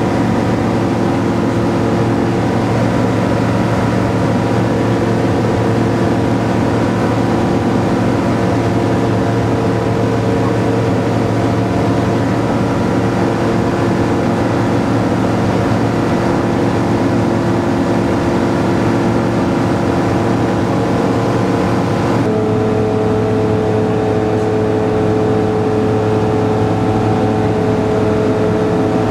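Kitfox light aircraft's engine and propeller running steadily in cruise flight, a constant drone heard from on board. The tone shifts abruptly about 22 seconds in, then holds steady again.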